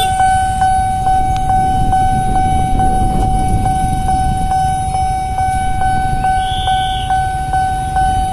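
Railway level crossing warning alarm sounding a steady high electronic tone, with a faint tick about two and a half times a second, over the low rumble of road traffic. It signals that a train is approaching and the crossing is closing.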